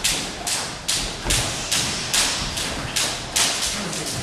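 Steady run of sharp thuds in a boxing gym, evenly spaced at about two and a half a second, each trailing off in a short echo.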